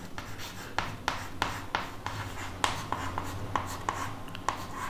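Chalk writing on a chalkboard: an irregular run of short taps and scratchy strokes, several a second, as letters are written.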